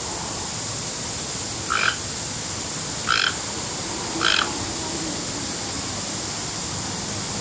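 Toco toucan giving three short croaking calls about a second apart, over a steady background hiss.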